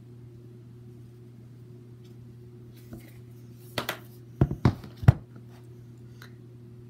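Makeup eyeshadow palette being handled: a quick run of four or five sharp clacks and knocks about four to five seconds in, over a steady low hum.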